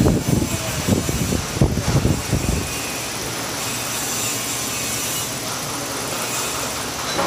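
Motorised sheet-metal bending machine working: irregular heavy clunks and rumble for about the first two and a half seconds, then a steady mechanical hum.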